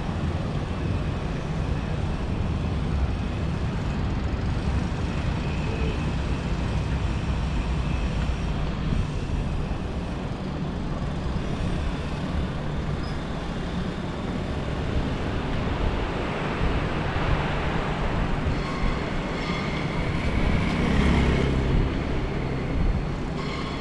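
Steady city street traffic noise with a low rumble. It grows louder for a few seconds near the end, as if a vehicle were passing.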